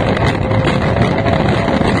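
An F1 tunnel boat's racing outboard engine running steadily and loudly under power, heard from the cockpit with wind rushing past.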